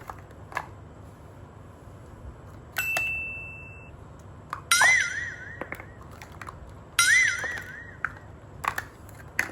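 Cartoon sound effects: a click and a bright, steady ding about three seconds in, then two warbling tones with a wobbling pitch near five and seven seconds, each lasting about a second, with small clicks in between.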